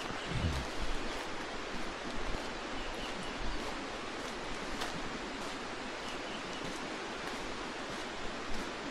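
Steady rushing noise, with a few brief low thuds in the first second.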